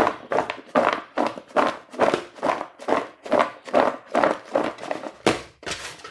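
Raw cut potato fries being tossed and shaken in a plastic basin to mix in salt before frying, a rhythmic rustling swish about two to three times a second.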